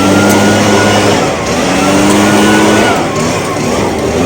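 Echo PB580T backpack blower's two-stroke engine at high throttle. The note is held, dips briefly about a second and a half in and again near three seconds, then climbs back as the throttle is eased and reopened.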